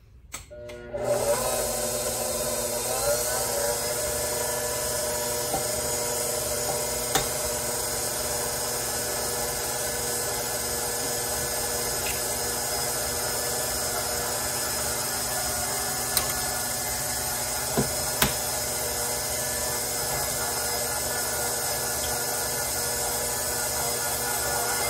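KitchenAid bowl-lift stand mixer switching on about a second in, spinning up, then running steadily as it mixes dough. A few sharp taps come over the motor sound.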